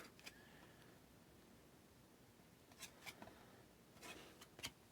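Near silence, broken by a few faint, short clicks and rustles of trading cards being slid and flipped by hand, from about three seconds in and again near the end.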